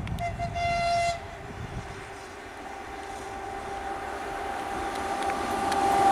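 ChS2T electric locomotive giving a short, high-pitched horn note about a second long near the start, then the rising rumble and hum of the locomotive and its passenger train approaching, growing steadily louder.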